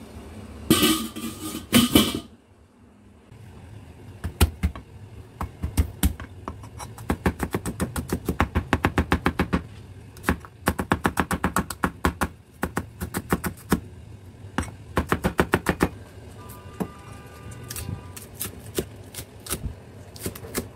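Two metal clanks from the stainless steamer pot, then a cleaver chopping onion and spring onions on a plastic cutting board in quick runs of about five strokes a second, with short pauses between runs.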